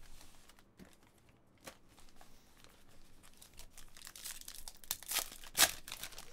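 Foil wrapper of a Panini Select football card pack crinkling in the hands and being torn open, the crackles building after a quiet start, with the sharpest rips about five seconds in.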